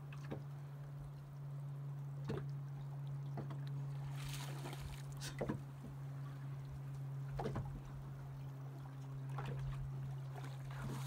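Steady low hum of the boat's engine, with water slapping and splashing against the hull and a few short knocks on deck.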